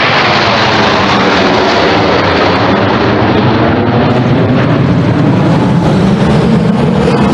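Loud, steady jet noise from the Canadian Snowbirds' formation of nine CT-114 Tutor jets flying low overhead.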